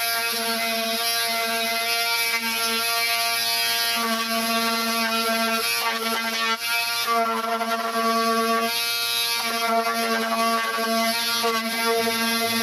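Handheld electric angle grinder running against a rusty bus tailgate frame: a steady motor whine over a hiss of grinding, with the tone shifting at times as it bears on the metal.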